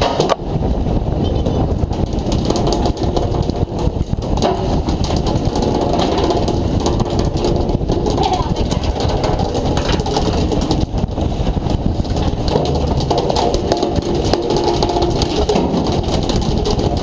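A fishing boat's engine running steadily at sea, with no breaks.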